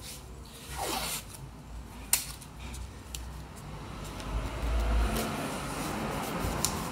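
Blue painter's tape ripped off the roll with a short zipper-like rasp about a second in, then handled and rubbed down by hand onto a motorcycle fuel tank, with a sharp click about two seconds in and a dull bump past the middle.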